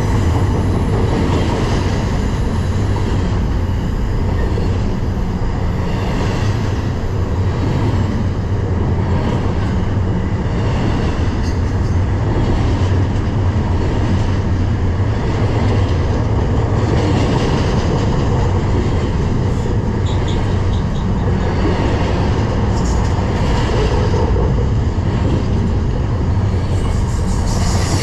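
Intermodal freight train cars rolling past at close range: a steady, loud rumble of wheels on rail.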